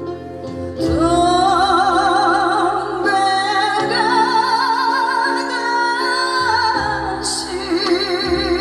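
A woman singing a Korean trot song live with accompaniment, holding long notes with a heavy, wavering vibrato.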